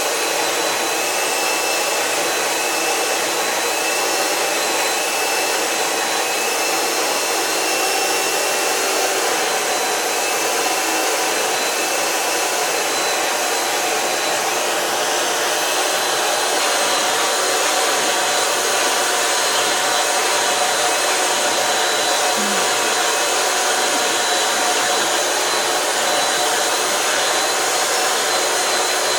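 Vacuum cleaner running steadily as it is passed over a shedding bulldog's coat, a rushing hum with a high whine that shifts slightly in pitch about halfway through.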